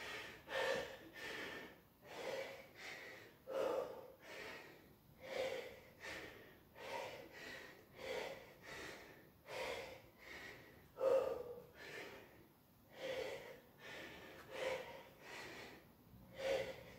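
A man breathing hard through the mouth while exercising, steady and rhythmic, with a breath in or out about every three-quarters of a second.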